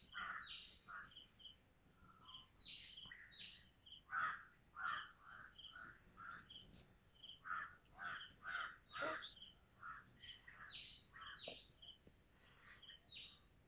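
Many short bird calls, one after another, over insects chirping in quick groups of three or four high notes.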